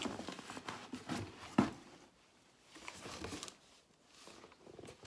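Rummaging in a cardboard box: irregular rustling and light knocks as items and packaging are handled, with one sharper knock about one and a half seconds in.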